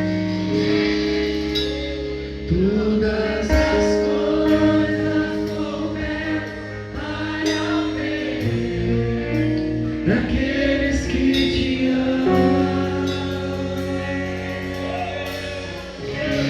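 Church worship band playing gospel music, with voices singing over long held chords.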